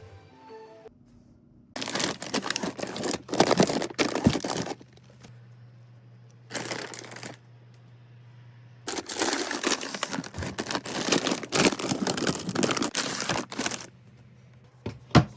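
Crinkling and rustling in several bursts, the longest lasting about five seconds, with two sharp clicks near the end.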